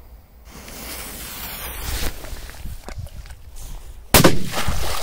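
A lit firecracker's fuse hissing, growing louder, then a sharp bang about four seconds in as the firecracker explodes in water.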